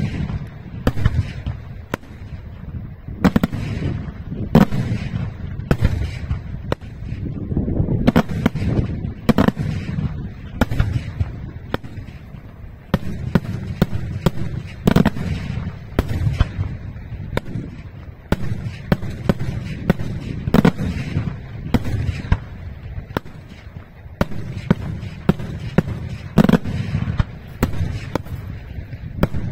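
Daytime fireworks display: aerial shells bursting in a steady barrage of sharp bangs, several a second, over a continuous low rumble.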